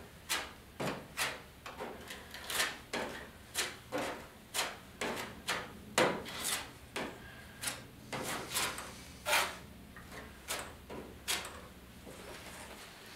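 Plastic spreader scraping body filler across a steel truck hood in short, repeated swipes, about one or two a second at an uneven pace, each a brief rasp.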